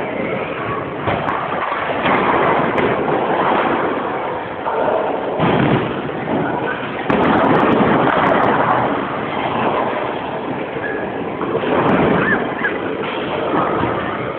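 Bowling alley din: bowling balls rumbling down wooden lanes and pins crashing, over the steady noise of the hall. It swells and falls several times.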